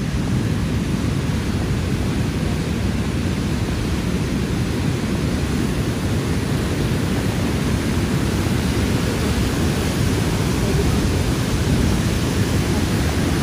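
Niagara River rapids rushing: a loud, steady roar of whitewater, heaviest in the low range.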